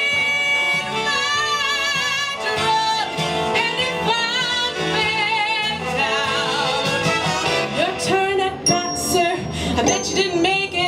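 A woman belting a Broadway show tune live into a microphone, her held notes wavering with a wide vibrato, over instrumental accompaniment.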